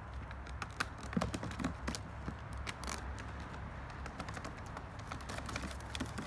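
Scattered sharp clicks and taps as a bird release box is handled and its top flaps are pulled open, over a low steady rumble.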